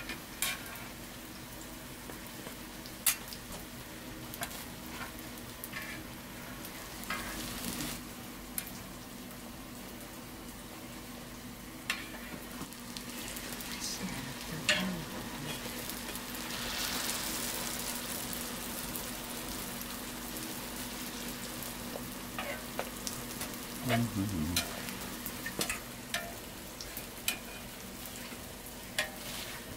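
Hotteok frying in shallow oil on a flat griddle, a steady sizzle that swells for a couple of seconds around the middle, with now and then a sharp metal click from the press and tongs against the griddle. A low steady hum runs underneath.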